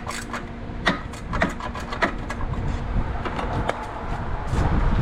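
Irregular metallic clicks and clinks of a socket wrench working on 8 mm nuts holding ground wires. A louder rumbling handling noise builds near the end.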